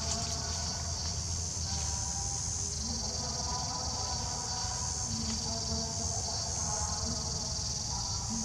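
Steady, high-pitched chorus of insects, continuous and unbroken, over a constant low rumble.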